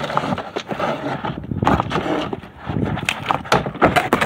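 A quick run of knocks, clicks and scraping rubs close to the microphone, handling noise.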